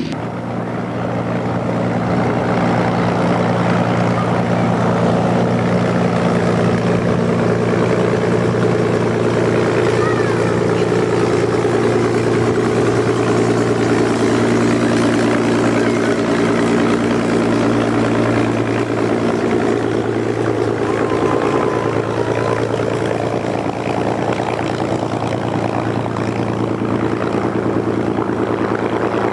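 World War II fighters' V-12 piston engines idling at taxi speed: a steady, deep, even drone of propeller engine beat. The drone swells over the first couple of seconds and shifts slightly in pitch about two-thirds of the way through.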